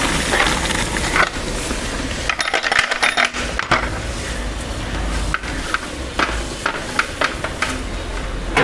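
Soaked kaima rice poured in quantity from a metal vessel into a large aluminium pot of rolling-boiling water, a rushing pour with many sharp metallic clinks. Later the clinks come singly over the bubbling water.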